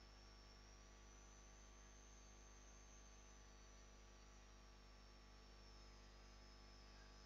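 Near silence: room tone with a low, steady electrical hum and a faint high whine that drifts slightly in pitch.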